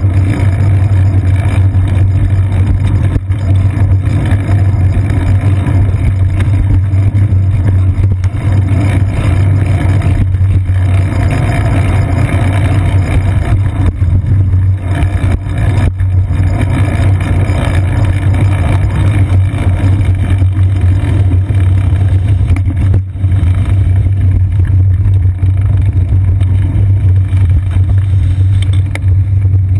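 Steady, loud low rumble from a GoPro camera clamped to a moving bicycle's seat post: road vibration and wind on the camera, with city traffic mixed in.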